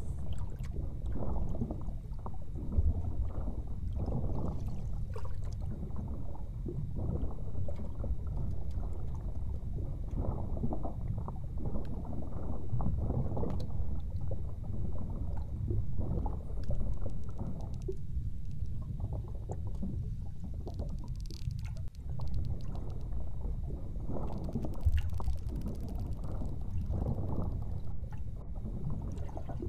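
Underwater sound picked up by a boat-mounted camera: a steady low rumble of water and boat noise with constant crackling, all of it in the low and middle range.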